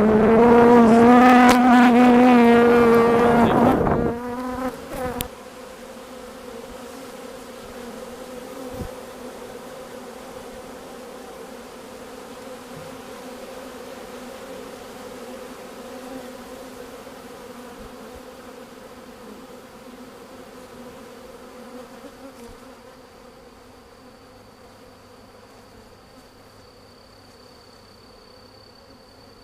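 Honey bees buzzing: a loud, wavering buzz for about the first four seconds, as of a bee flying close to the microphone, then the quieter steady hum of many bees around the hive, slowly fading. A faint high steady tone joins about three quarters of the way through.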